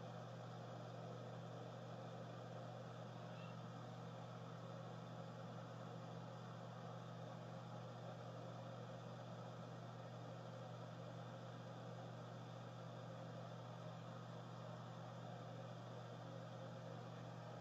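Quiet, steady low hum with a faint even hiss: indoor room tone through a phone microphone, with no other events.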